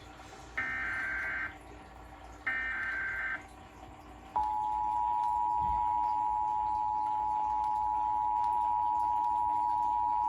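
Emergency Alert System SAME header: two short digital data bursts, each about a second long, with a harsh warbling screech. About four seconds in, the EAS attention signal starts, a steady two-tone alert tone that holds without a break.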